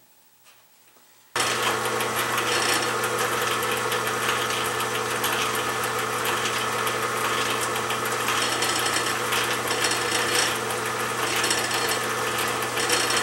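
Restored Atlas benchtop horizontal milling machine switched on about a second in, its motor and belt drive then running steadily with a low hum and a fine rattle. The owner picks out a little vibration that still needs fixing.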